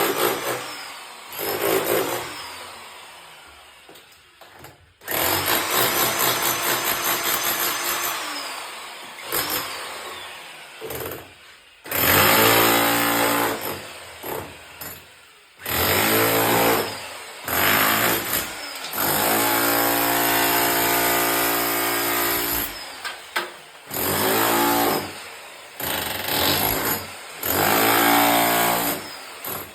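Electric power tool running in repeated bursts of a few seconds each, its motor starting and stopping sharply between them.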